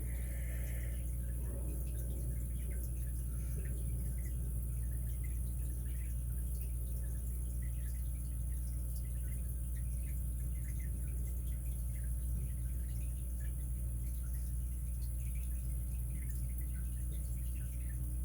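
Faint, scattered small metallic clicks and scrapes of lock picks and a tension tool working the pins of a Master 220 padlock's removable core, over a steady low electrical hum and hiss that is the loudest thing heard.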